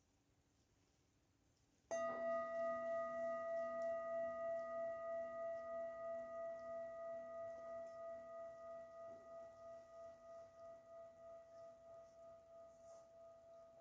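A metal singing bowl struck once about two seconds in, then ringing on with several overlapping tones and a slow wavering pulse as it gradually fades.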